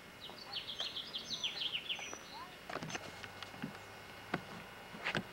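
A bird singing a quick run of short high chirps for about two seconds, followed by a few scattered sharp clicks and knocks.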